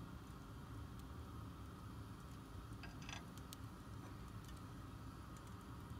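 Quiet low hum with a few faint clicks and a brief scrape about three seconds in, from a plastic ladle touching a nonstick pan as pancake batter is poured.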